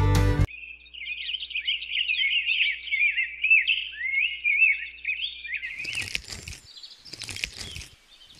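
Songbird chirping in rapid, quickly warbling phrases for about five seconds, used as a sound effect. Near the end come about three short, scratchy noise bursts.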